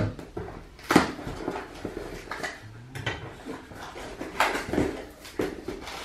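Cardboard box being unpacked by hand: a sharp clatter about a second in as a utility knife is put down on the hard floor, then the box flaps pulled open and knocked, with rustling of cardboard and plastic wrapping and several more knocks.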